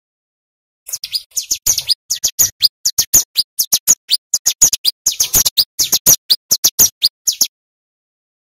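Male ciblek gunung (a prinia) singing a fast, loud run of sharp, high chirps, about five or six a second, starting about a second in and stopping abruptly near the end.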